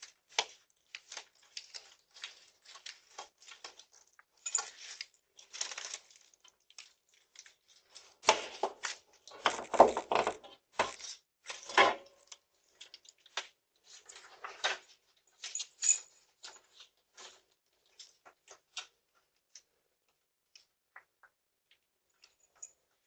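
Irregular rustling, clicking and clinking of objects being handled, the sound of decorations being taken down. About eight to twelve seconds in there are a few heavier knocks.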